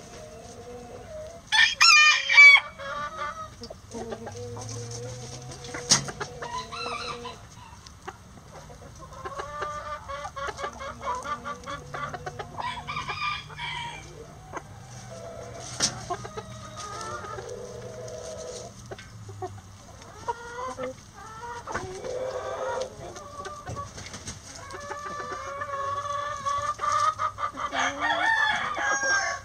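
A flock of backyard chickens clucking and calling. A rooster crows loudly about two seconds in, and there is another long, loud call near the end.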